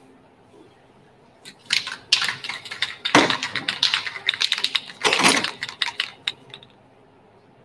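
Aerosol can being shaken and handled: fast runs of rattling clicks for about five seconds, with a few louder rushes of noise. The clicking stops about a second before the end.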